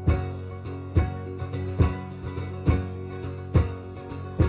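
Live band playing an instrumental passage between sung lines: strummed guitar chords over a strong beat that falls about once a second.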